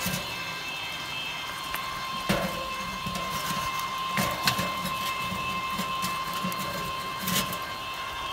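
Electric rotisserie spit motor on a Weber charcoal kettle running with a steady high tone over a pulsing hum, with a few knocks as chunks of smoking wood are set on the coals.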